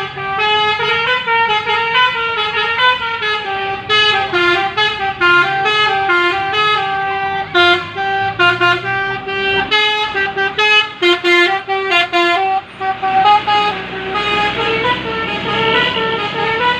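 Basuri (telolet) multi-tone bus horn playing a tune, its notes stepping up and down several times a second.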